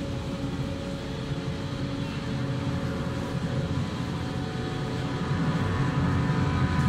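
Symphony orchestra playing live: low held chords that swell louder about five seconds in.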